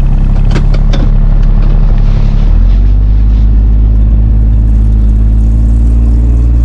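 Kubota's engine running loud and steady while stuck in deep snow, its pitch rising a little about two and a half seconds in. A few knocks sound in the first second.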